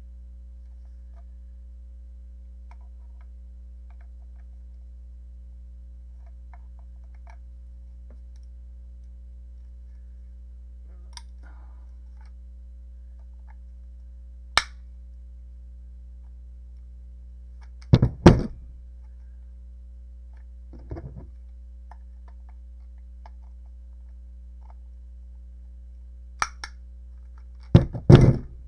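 Plastic power-supply case being cracked open by hand: a few sparse sharp cracks and knocks, loudest in a cluster about two-thirds through and again at the end, over a steady low hum.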